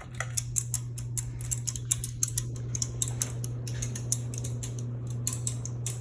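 Minka Aire Carmel ceiling fan running on high speed: a steady motor hum that comes up louder right at the start, with rapid, irregular ticking and clicking throughout.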